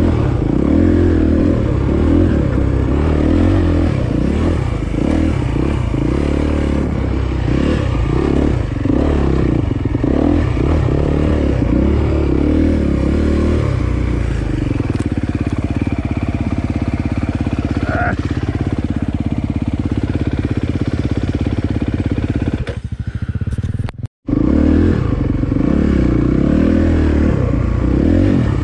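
Dirt bike engine revving up and down as it is ridden along a trail, holding a steadier pitch for a stretch midway. Near the end all sound cuts out for a split second.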